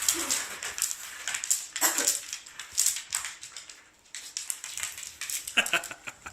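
A dog playing with a new toy: a run of short scratchy clicks, with a few louder short sounds about two seconds in and again near the end.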